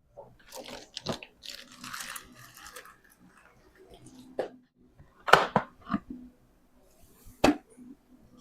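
Handling noises from a Dirt Devil upright vacuum's filter compartment: rustling and crunching of the foam filter with several sharp plastic clicks and knocks, the loudest in the second half, as the used filter is taken out.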